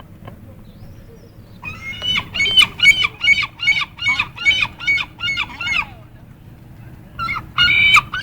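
Seagull calling: a fast run of about a dozen repeated notes, some three a second, then a short louder call near the end.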